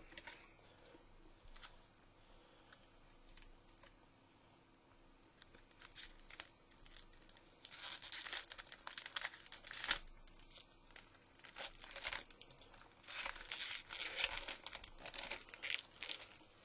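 Foil trading-card pack wrapper crinkling and tearing as it is opened by hand, in crackling bursts over the second half, after a few light clicks.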